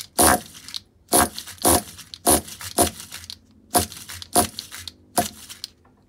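Nitro RC car glow engine being pull-started, about eight quick yanks of the starter cord in a row. Each pull gives a short rasping burst as the engine turns over and sounds close to firing. The engine has not run for about 14 years and is on 14-year-old fuel.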